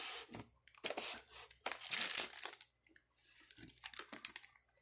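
Clear plastic packaging bags being handled, crinkling and rustling in several irregular bursts with short pauses between.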